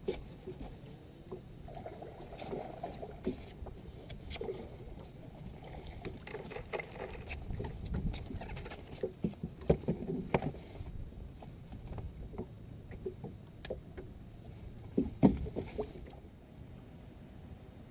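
Scattered knocks, clicks and rustling as a bass is reeled in and lifted aboard a bass boat, over a faint steady wash of wind and water. The sharpest knocks come about halfway through and again a few seconds later.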